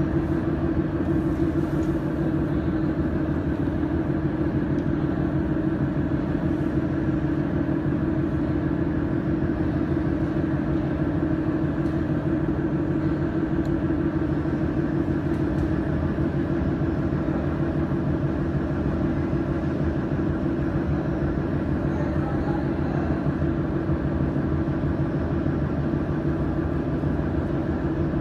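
Steady machine hum from a running laser welding machine, with a strong low tone and a few faint ticks.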